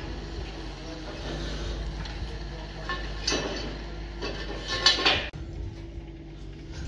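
Construction-site noise: a steady machine hum with metallic clinks and rattles of steel about three seconds in and again near five seconds, the second the loudest.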